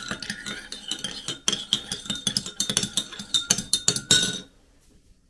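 Metal teaspoon stirring a drink in a ceramic mug, clinking rapidly against the sides; the stirring stops about four seconds in.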